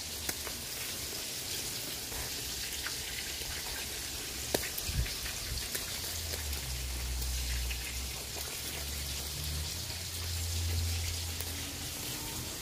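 Pork sizzling and crackling on a charcoal grill, a steady hiss dotted with small pops. A low rumble runs underneath for several seconds in the middle.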